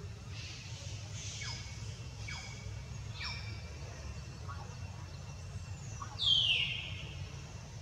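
Infant long-tailed macaque squeaking: several short, high calls that fall steeply in pitch, then about six seconds in a louder falling squeal about half a second long, over a steady low hum.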